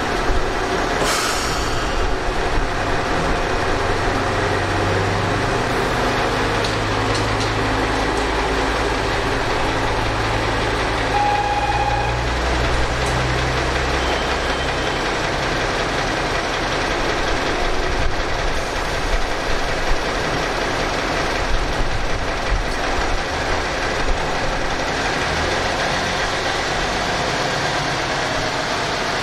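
Diesel engines of a coupled pair of ex-JNR KiHa 37 railcars idling while the train stands at the platform: a steady low rumble, heaviest in the first half.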